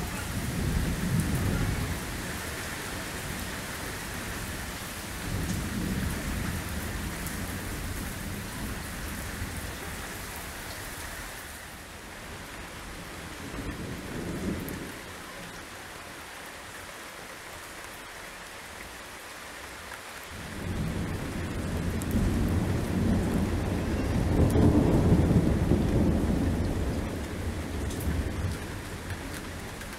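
Heavy rain hissing steadily through a thunderstorm, with several low rolls of thunder. The rain is heavier in the first part and lighter later on, and a long rumble of thunder builds about two-thirds of the way through, peaks and slowly dies away.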